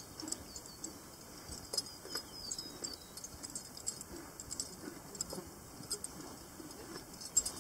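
Horses being ridden at a walk over grassy ground: faint, irregular light clicks and ticks from their tack and hooves.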